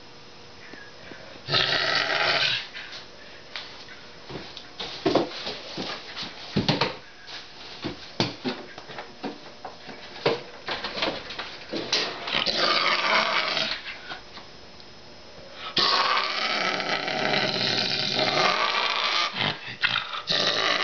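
Canada lynx growling while guarding a raw chicken leg at feeding, in long bursts: one about a second and a half in, another around twelve seconds, and a long one from about sixteen seconds on. Scattered short clicks and knocks fall between the growls.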